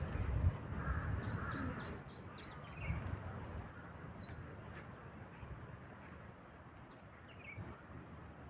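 Outdoor ambience: wind rumbling on the microphone for the first two seconds, with a quick run of high chattering bird notes about a second in and a few scattered short bird chirps after.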